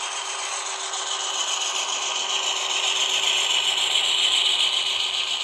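HO scale freight cars rolling past on model track: a steady rattling clatter of small wheels over the rails, getting louder about halfway through.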